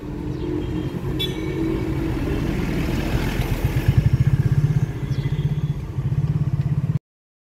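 An engine idling: a steady low pulsing that gets louder from about four seconds in, then cuts off abruptly near the end.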